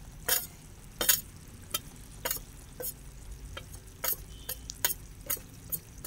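Chicken curry cooking in a pot over a wood fire, crackling with sharp, irregular pops, about one or two a second, over a low steady rumble.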